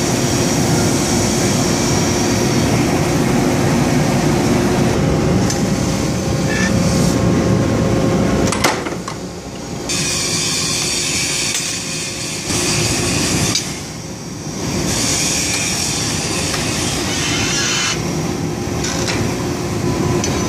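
Forging-shop machinery running loud and steady, a hum under a wide hiss, while a red-hot steel piece is formed in a forging die. A single sharp clank comes about eight and a half seconds in, and the noise then drops and comes back several times as the machine cycles.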